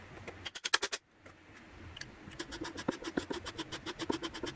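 Sharp taps of hand-tool work on a wooden dovetail joint: a short cluster about half a second in, then a fast, even run of about six taps a second from a little over two seconds in.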